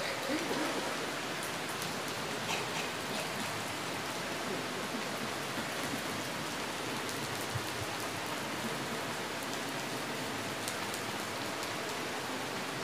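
Steady hiss of background noise, with a few faint scattered clicks and a brief low murmur near the start.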